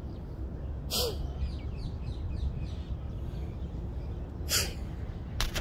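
Low steady rumble of wind on the microphone, with two short, sharp sounds that drop in pitch, about a second in and again about three and a half seconds later.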